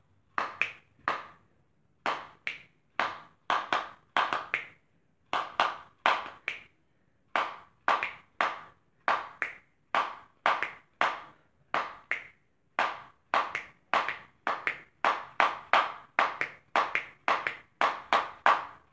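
A Copenhagen snuff can drummed by hand as a rhythmic beat: a steady run of sharp taps, about two a second, in a repeating pattern.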